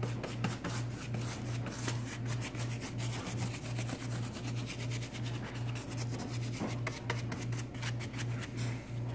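Stiff bristle paintbrush scrubbing paint over the rough paper clay surface of a pumpkin prop in quick repeated scratchy dry-brush strokes, over a low steady pulsing hum.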